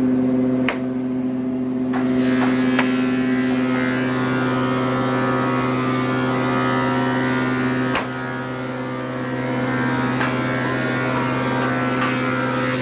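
Single-spindle wood moulder running with a steady motor hum, with a few sharp knocks along the way.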